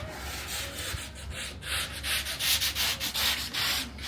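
Sandpaper or sanders scrubbing the bottom of a fiberglass sailboat hull, prepping it for antifouling paint. The rasping hiss swells and fades in uneven strokes.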